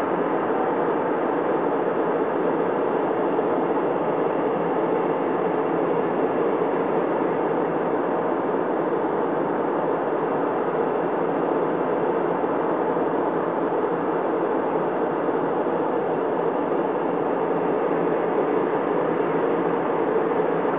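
Airliner cabin noise in flight: jet engine and airflow heard from inside the cabin as a steady, even rushing noise that does not change.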